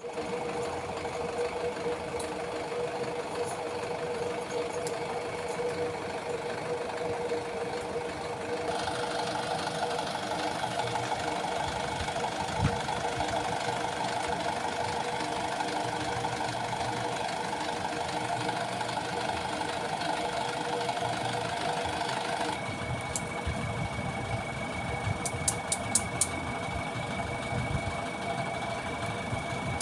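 An engine running steadily, its note changing about a third of the way in and again about three quarters through, with a few sharp clicks near the end.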